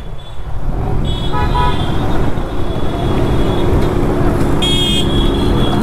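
Steady engine and wind noise from riding a Yamaha R15 V3 motorcycle in slow traffic, with two short vehicle horn toots, about a second in and again near the end.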